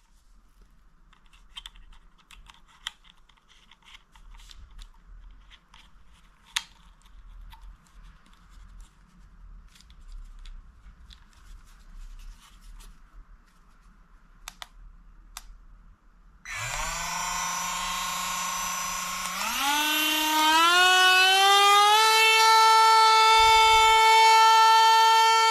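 Light handling clicks and taps, then a cordless rotary tool's motor switching on about sixteen seconds in with a steady whine. About three seconds later it steps up to a higher speed and holds there.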